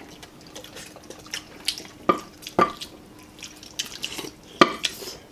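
People eating beef bone marrow: wet mouth sounds of sucking and chewing the marrow, with a few sharp clicks of bones and utensils on the dishes.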